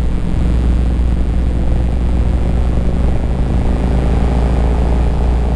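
Motorcycle under way at steady cruising speed: a continuous low engine drone with road and wind rush.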